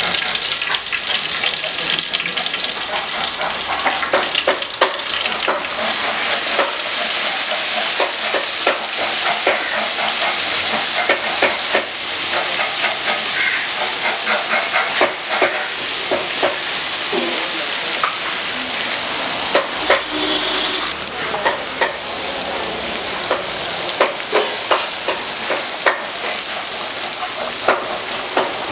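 Masala-coated river fish deep-frying with curry leaves in a pot of hot oil: a steady sizzle with frequent crackles and pops.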